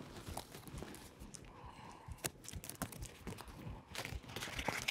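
Faint footsteps on a hard stage floor, then paper rustling near the end as a small envelope is opened.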